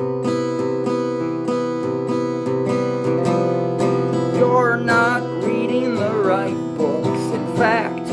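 Music: acoustic guitar strumming steady chords. About halfway through, a wavering melody line with a strong vibrato comes in over the chords.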